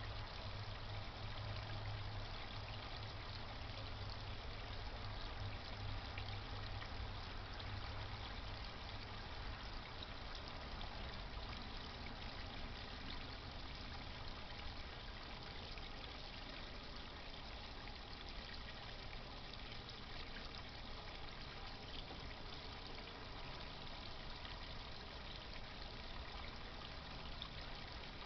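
Steady splashing and trickling of water from a garden pond pump. A low hum underneath fades out about a third of the way in.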